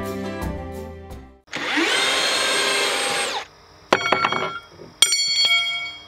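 Background music fading out, then a cordless drill spinning up, running steadily for about two seconds and winding down. Two sharp clicks with a short metallic ring follow, about a second apart.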